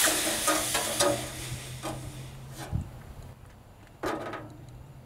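Hot, freshly cast tin-bronze dagger quenched in a bucket of water: a loud hiss of sizzling water that fades over about two seconds, a couple of knocks, then a second, shorter hiss about four seconds in.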